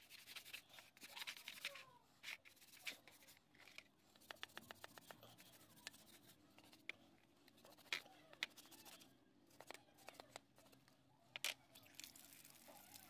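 A brush scrubbing rusty steel lasting pincers in a wet powder paste in a plastic tray, scouring off the rust: quiet scrubbing strokes mixed with sharp clicks and knocks of the metal tool against the tray, including a quick run of ticks about four seconds in.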